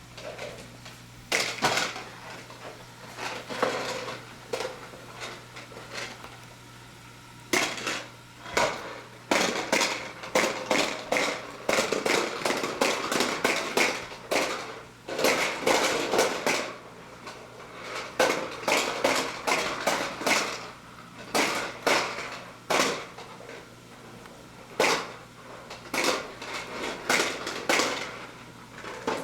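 Hard plastic clattering and knocking in irregular bursts as a toy vacuum is pushed and bumped along, with a faint steady hum underneath.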